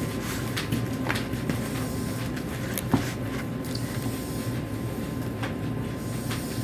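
Clear glue slime being mixed by hand in a bowl: irregular small sticky clicks and squelches, with a sharper tick about three seconds in, over a steady low background hum.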